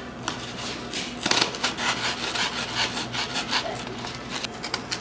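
Steak knife sawing through thick layered corrugated cardboard: a quick run of rasping strokes, about three or four a second, starting a moment in.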